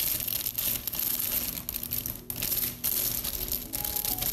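Small hard plastic accessory parts and their packaging being handled: a string of irregular light clicks and rattles with rustling.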